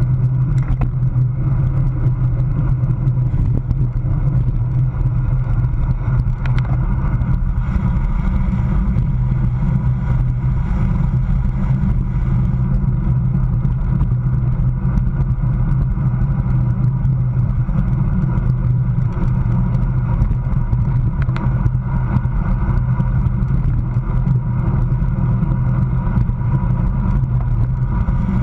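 Steady low wind rumble buffeting the microphone of a road bicycle moving at racing speed, around 19 to 27 mph, with tyre and road hum underneath.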